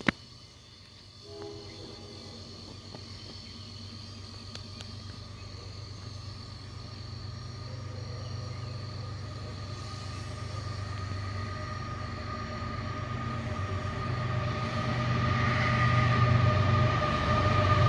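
CSX diesel freight locomotive approaching, its engine drone and rail noise growing steadily louder. Insects chirp faintly underneath. There is one sharp click right at the start.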